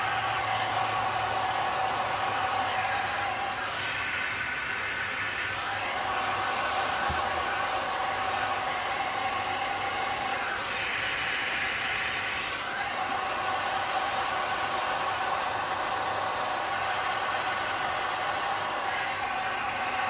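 Heat gun running steadily, a constant whine under a rush of blown air. The air rush swells briefly about four seconds in and again about eleven seconds in.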